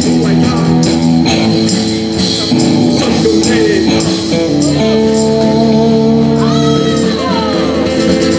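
Live band music: electric guitars and bass with a tambourine, settling about five seconds in into a long held chord with sliding guitar notes over it.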